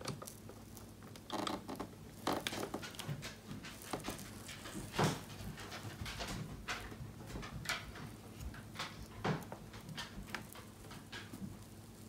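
Hands working on a plastic Xerox C3300 toner cartridge, picking at its yellow seal: irregular clicks, taps and crackles, loudest about five seconds in.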